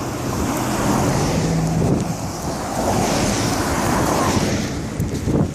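A car passing close by, its tyre noise and engine swelling about a second in and fading near the end, with wind on the microphone.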